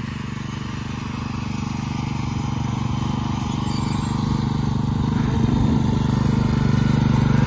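Troy-Bilt riding lawn mower's small engine running steadily as the mower is driven, growing steadily louder.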